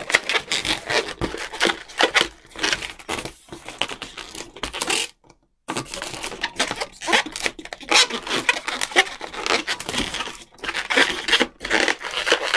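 Long latex modelling balloons being bent and twisted by hand: a dense run of rubbing, squeaking and crinkling, broken by a half-second gap about five seconds in.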